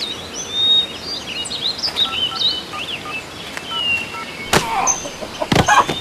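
Woodland birdsong: many small birds chirping and whistling in short rising and falling calls. A sharp knock comes about four and a half seconds in, and a heavier thud about a second later.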